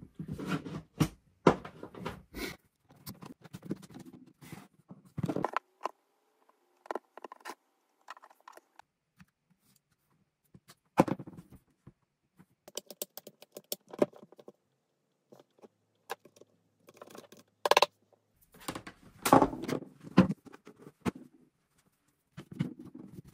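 Irregular clicks, taps and light scrapes as a Makita GA5030R angle grinder is taken apart by hand, its housing and small parts handled and set down. A few louder knocks come about 11 seconds in and again near 18 seconds.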